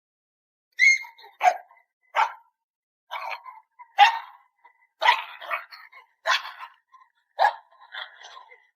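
A dog barking repeatedly: about nine short barks at uneven intervals, starting about a second in.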